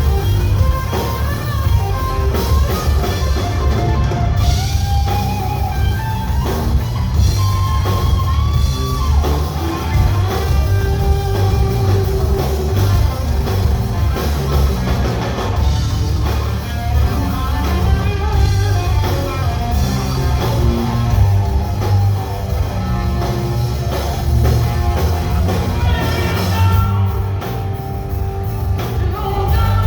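Live rock band playing loudly: electric guitar lead lines with held, bending notes over drum kit and bass.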